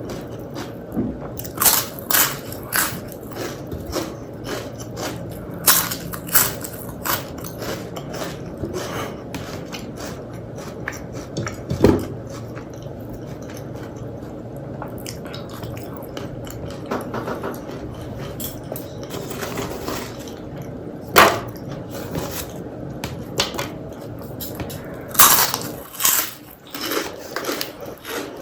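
Close-miked eating: chewing and biting mouthfuls of rice, dal and fried vegetables, heard as irregular wet and crunchy clicks, with a few louder sharp clicks.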